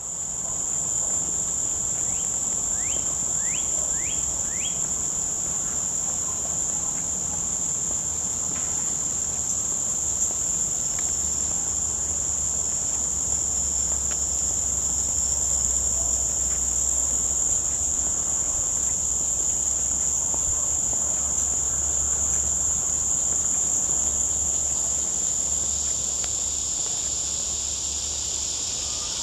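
Summer insect chorus: a steady, high-pitched drone of many insects singing together, with four quick rising chirps about three seconds in.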